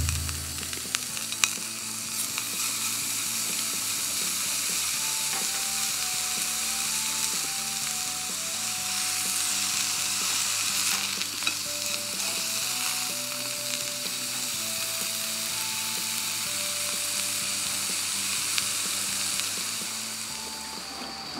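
Slices of beef sizzling steadily in a hot cast-iron skillet, with a few light clicks of metal tongs as the slices are turned.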